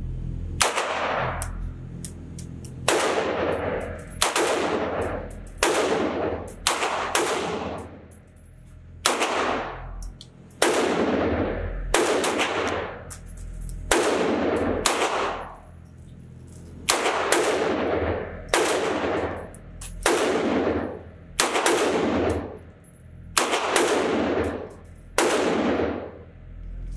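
Beretta U22 Neos .22 LR pistol fired in slow, aimed single shots, roughly one a second with uneven pauses, for a long string of shots. Each crack is followed by a long echo off the concrete walls of an indoor range.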